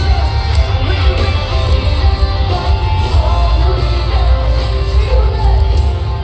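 Live rock band playing loud, with distorted guitars, heavy bass and drums, and a singer's voice over them.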